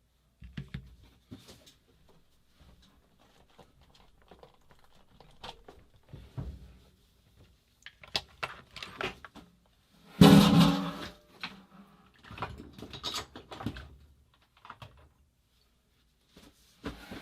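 Small parts and tools being handled on a workbench: scattered light clicks and knocks, with one louder clunk about ten seconds in.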